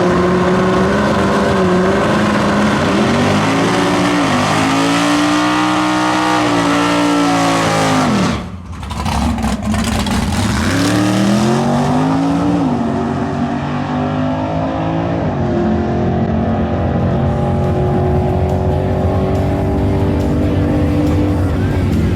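Drag-racing 1967 Plymouth Barracuda's 512 cubic inch stroked Mopar 440 big-block V8 running loud and revving. The engine note climbs and holds twice, with a sudden break about eight seconds in, then settles to a steadier pitch.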